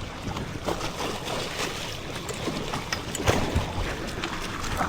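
Wind and sea noise aboard a small open fishing boat at sea, a steady rushing hiss with a few short knocks.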